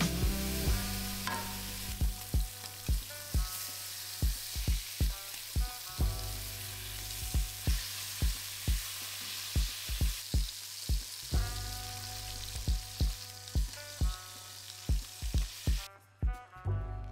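Pork belly sizzling as it fries in a pan, the hiss stopping abruptly about a second before the end, over background music with a steady beat.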